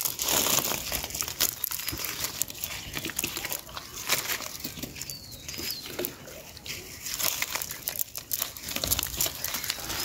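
Crackling and rustling of a fishing net and dry leaves on grass as small fish are picked out of the mesh by hand, many small irregular crackles.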